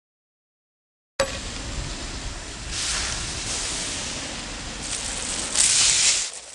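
Sizzle sound effect of an item searing on a hot grill: steady hissing that starts abruptly about a second in, swells twice, loudest near the end, then dies away.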